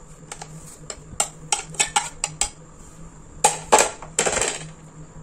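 Kitchen utensils clinking and scraping against ceramic dishes as spice powders are tipped off a plate into a bowl: a string of light clicks, then a few louder clinks and a short scrape a little after halfway.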